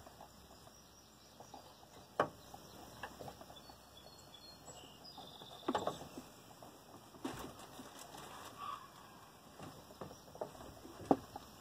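Scattered light knocks and clinks of hand work on the truck, the sharpest about a second before the end, with a few faint short high chirps in between.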